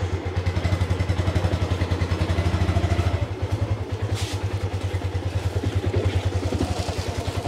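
Small motorbike engine running just after being started, a fast, even low throb.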